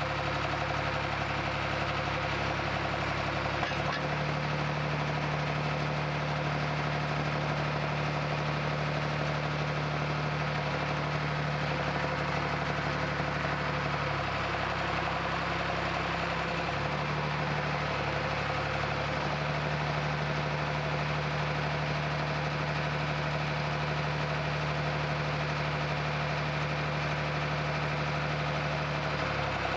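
John Deere 310B backhoe's four-cylinder diesel engine running at low speed, its note shifting slightly a few times as the machine is driven slowly.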